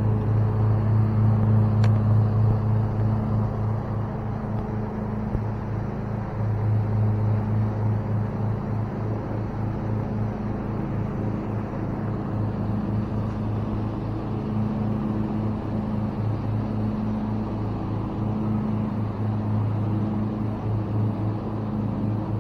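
A lawnmower engine running steadily, a low hum that gets a little louder and softer over time.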